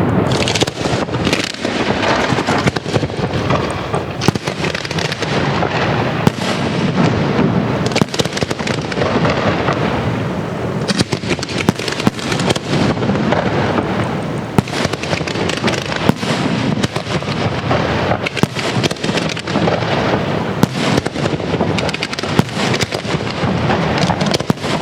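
A castillo fireworks display's aerial shells bursting in a dense, unbroken barrage: many bangs a second over a continuous crackle and rumble.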